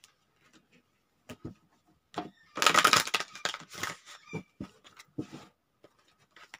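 A deck of fairy oracle cards being shuffled by hand. A few light taps and clicks come first, then a loud riffle of the cards about two and a half seconds in, then softer shuffling and tapping of the deck that dies away about five seconds in.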